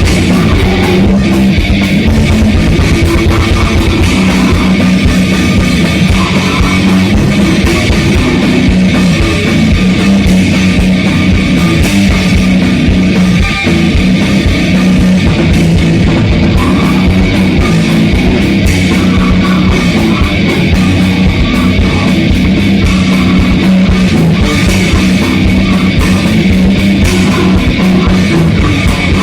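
Grindcore band playing at full volume in a rehearsal recording: heavily distorted electric guitars over rapid drum-kit hits, dense and continuous, with a brief break about thirteen and a half seconds in.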